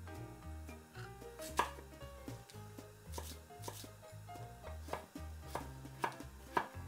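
Kitchen knife chopping food on a cutting board, irregular strokes about twice a second, the sharpest about a second and a half in, over soft background music.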